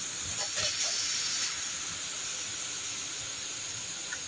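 Steady hiss, with a few faint knocks in the first second and a half.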